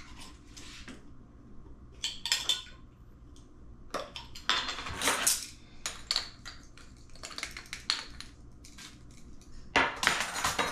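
Metal measuring spoons clinking and scraping against a glass spice jar as chili powder is scooped out, in scattered clicks and scrapes. There is a louder scrape about five seconds in and a clatter near the end as the spoons are set down on the table.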